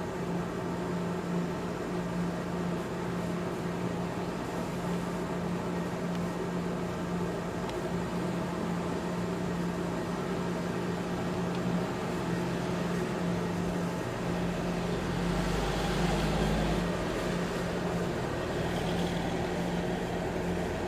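Steady mechanical hum, one low droning tone with fainter higher ones above it. About three-quarters of the way through, a deeper rumble with some hiss swells for a couple of seconds, like a vehicle going by.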